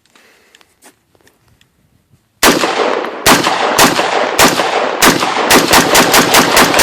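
AR-15 rifle firing after being buried in snow: about 2.5 s of quiet with faint clicks, then a string of about a dozen loud shots, spaced out at first and quickening to rapid fire of four or five a second. The rifle keeps cycling and firing despite the snow.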